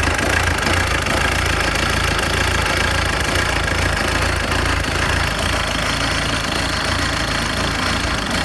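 Nissan CD20T 2.0-litre four-cylinder turbodiesel running at a steady idle.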